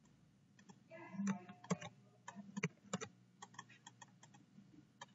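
Typing on a computer keyboard: a quick, irregular run of key clicks starting about a second in.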